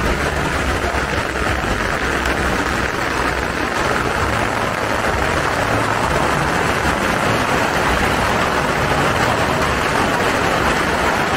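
Firecrackers going off continuously in a dense, even crackle like heavy rain, with no separate loud bangs standing out.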